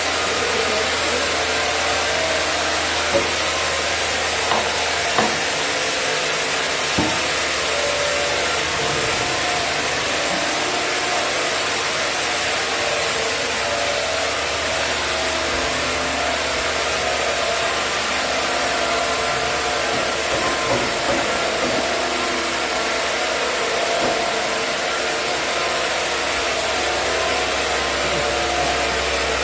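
Sawmill saw running steadily through a chinaberry log as it is sawn into boards, a continuous even noise with a few light knocks in the first several seconds.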